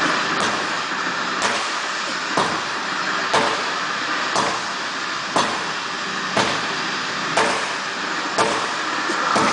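Sledgehammer strikes landing about once a second, each a sharp thud over a steady background hiss.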